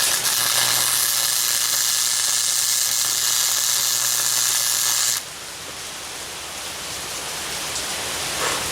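MIG welder arc burning steadily, a loud hiss and crackle over a low electrical hum, as a nut is welded onto a broken exhaust manifold stud to get it out. It stops suddenly about five seconds in.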